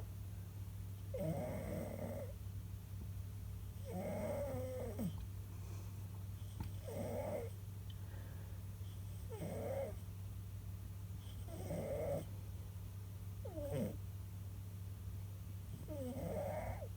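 Domestic cat snoring loudly in its sleep: about seven drawn-out snores at a steady rhythm, one every two to three seconds.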